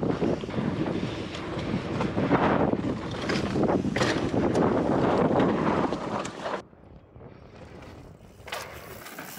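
Strong wind buffeting an action camera's microphone while a mountain bike rolls along a dirt trail, with tyre noise and a few sharp clicks of the bike rattling. About two-thirds of the way through the sound cuts off suddenly to a much quieter, thinner background.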